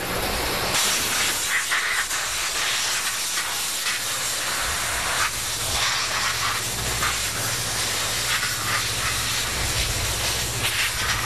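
Nitro drag racing engine running hard, heard as a loud, steady wall of noise, with a low hum joining about four seconds in.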